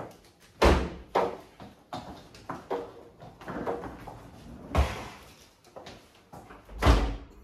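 A string of knocks and clunks from a hotel room door being opened and rolling suitcases being brought in, ending with the door swinging shut in a loud thud near the end.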